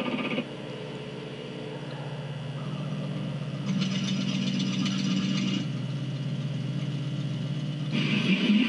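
Spaceship engine sound effect from a science-fiction film soundtrack: a steady low engine drone, with a hiss that swells in for about two seconds near the middle and again just before the end.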